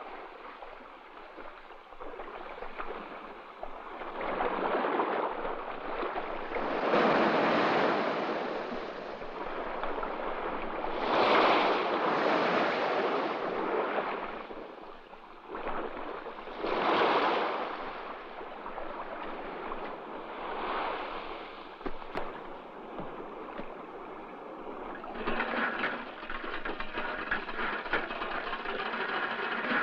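Small waves washing onto a muddy, rocky shore, each one swelling and falling back every few seconds. Near the end a steadier fine rattling joins.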